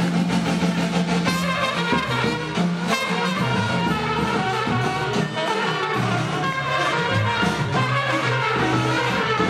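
Balkan brass band music for dancing, led by trumpets and horns, with a held low bass note in the first second and a half.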